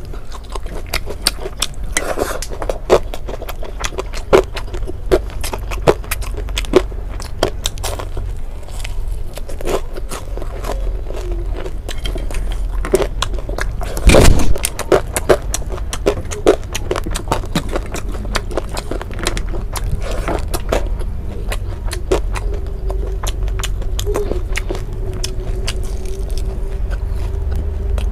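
Close-miked eating sounds: chewing, lip smacking and clicks of the mouth on fried fish, rice and a raw red king chilli eaten by hand, steady throughout over a low hum, with one louder short crunchy burst about halfway through.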